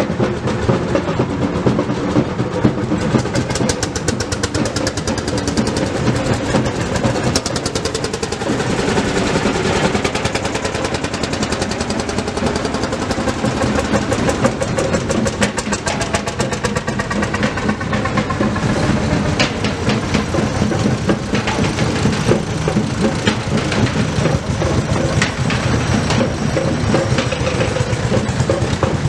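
Vintage tractor engines running as the tractors drive slowly past, with a rapid, even exhaust beat.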